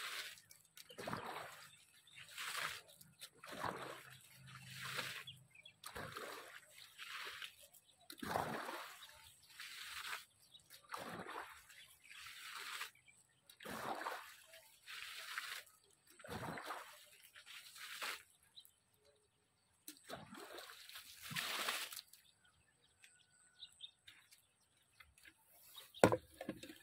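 Water being splashed onto vegetable plants in repeated short dousings, about one a second, which stop about 22 seconds in. A couple of sharp knocks follow near the end.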